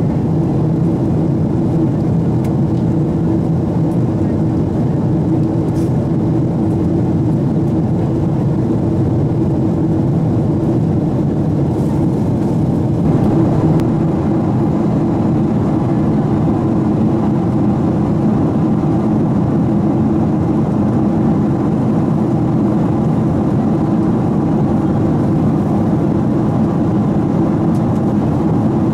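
Steady cabin noise of a Boeing 777-200 in flight: a loud, even rush of engines and airflow with a steady low drone. The upper part of the noise shifts slightly about thirteen seconds in.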